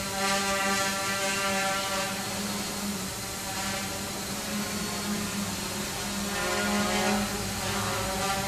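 Quanum Venture quadcopter hovering, its Multistar motors and propellers giving a steady buzz whose pitch sags and rises slightly a couple of times as it holds position.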